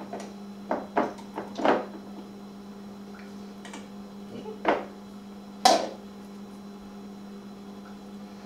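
Hands rubbing olive oil over a raw whole chicken in a baking dish: a handful of short slaps and knocks, the loudest about two-thirds of the way through, over a steady low electrical hum.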